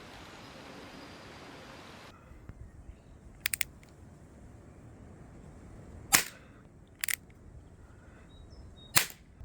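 CO2 airsoft Colt Single Action Army (Peacemaker) revolver firing .43 cal rubber balls: three sharp shots about six, seven and nine seconds in. A quick run of three clicks comes about three and a half seconds in, and a steady hiss cuts off about two seconds in.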